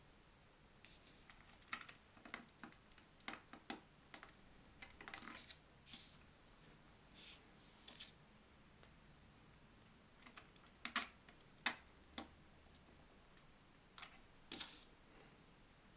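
Light, irregular clicks and taps of 3D-printed plastic clock parts being handled and fitted together, coming singly and in small clusters, with the loudest cluster about two-thirds of the way through.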